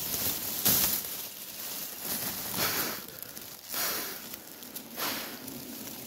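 Dry grass stems and leaves rustling and crackling as they are pushed aside close by, in several bursts about a second apart.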